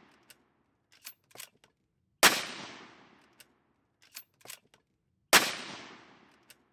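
Two .223 Remington shots from a CZ 527 bolt-action carbine, about three seconds apart, each followed by a long fading echo. Pairs of small clicks from the bolt being worked come before each shot.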